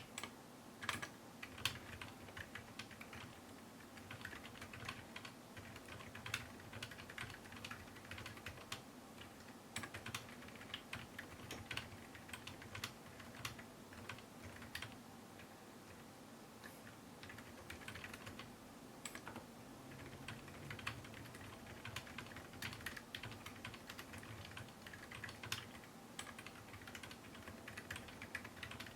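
Steady typing on a TADA68 mechanical keyboard with silenced switches (Gateron Ink Black housings with MX Silent stems, lubed) and MT3 ABS keycaps in a wooden case: a quick, irregular stream of soft, dampened key presses, picked up by a camera's built-in microphone.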